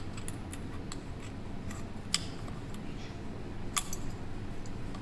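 Light metallic clicks and taps from a puzzle padlock and its key being handled and turned, with two sharper clicks, one about two seconds in and one nearly four seconds in.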